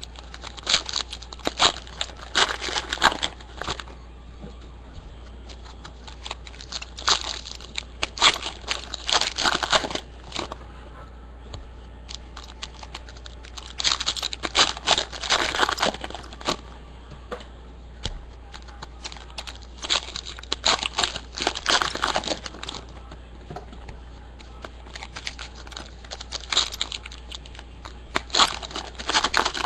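Trading-card packs being torn open and their foil wrappers crinkled, one pack after another, in five crackling bursts about six seconds apart.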